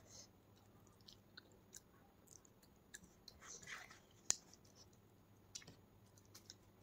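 Faint close-up chewing and scattered small clicks as rice and curry are mixed by hand on a plate, with one sharper click a little after four seconds in.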